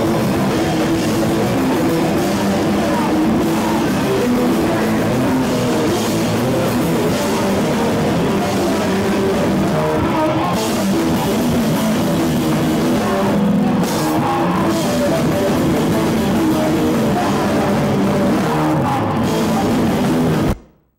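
Live rock band playing loud with drum kit and electric guitar, the sound dense and unbroken. It cuts out abruptly near the end.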